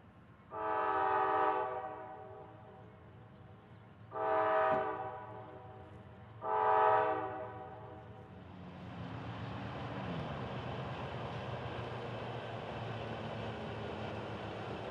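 Freight locomotive's multi-chime air horn sounding three blasts, the first the longest, then the rumble of the diesel locomotives and the train growing louder as it approaches.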